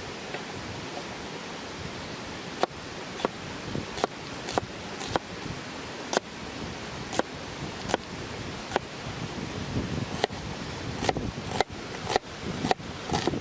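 Knife chopping onion on a cutting board: sharp knocks starting a few seconds in, irregular and roughly one or two a second, more often near the end, over the steady rush of a river.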